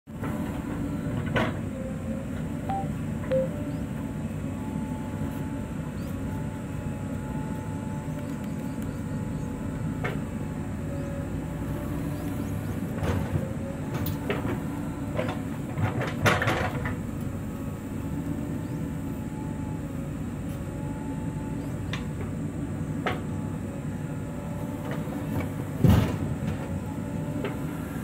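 JCB 3DX backhoe loader's diesel engine running steadily under working load as the backhoe digs soil and dumps it into a tractor trolley. Scattered clunks and knocks from the bucket, arm and falling soil, the loudest near the end.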